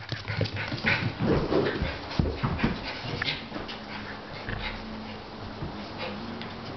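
Maltese terrier cross puppy whining and panting at play, with quick irregular taps and clicks of its claws on the wooden floor.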